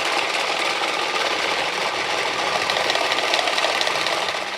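Wooden Easter rattles (Klappern) cranked hard, a dense, fast, continuous clatter of clicks that drops off near the end. This is the Holy Week rattling that stands in for the silent church bells.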